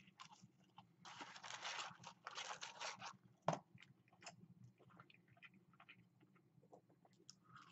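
A person chewing a crispy pretzel-breaded chicken fry with the mouth close to the microphone: crunching for about two seconds, a sharp click, then quieter chewing with small clicks.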